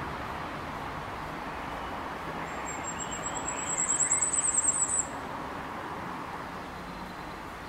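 Great tit fledgling begging: a very high, thin call that starts faint, then swells into a fast run of loud pulses and cuts off suddenly about five seconds in. A steady distant traffic hum runs underneath.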